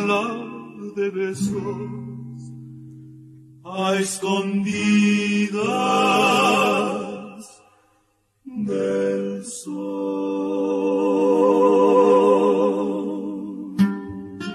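Romantic trio music: male voices holding long harmonized notes with vibrato. The music breaks off briefly about eight seconds in, resumes with more held notes, and plucked strings come in near the end.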